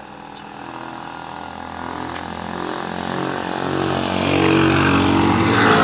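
A motor vehicle's engine approaching along the road, its steady running note growing steadily louder and loudest near the end.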